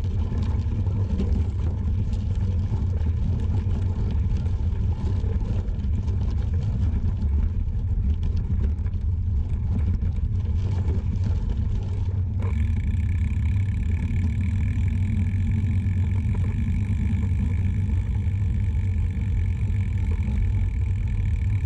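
Wind buffeting and tyre noise on the microphone of a GoPro mounted under the saddle of a moving road bike: a steady, dense low rumble. About twelve seconds in the sound changes abruptly and a few thin, steady high tones join the rumble.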